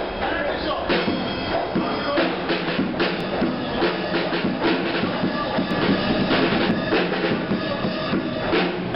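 A Tama drum kit played live in a busy, rhythmic groove, with bass drum, snare and cymbal hits.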